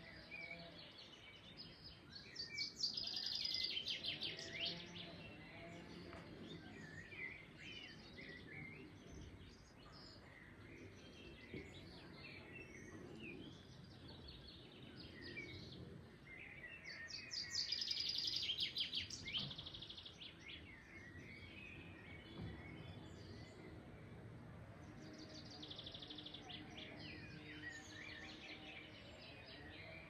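Songbirds singing: three loud bouts of rapid, trilling high notes, a few seconds in, midway and near the end, with scattered shorter chirps between them over a faint steady background hiss.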